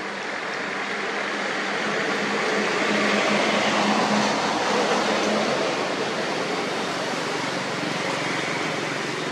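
A vehicle passing on the road: a steady rushing noise with a low engine hum that swells to its loudest about four seconds in, then fades.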